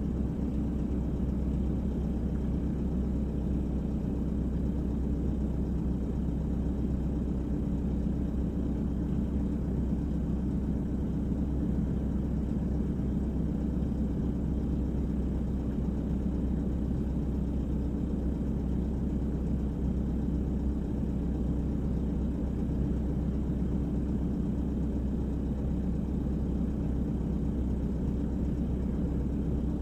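Volvo EWR150E wheeled excavator's diesel engine running steadily, a constant low drone heard from inside the cab as it works.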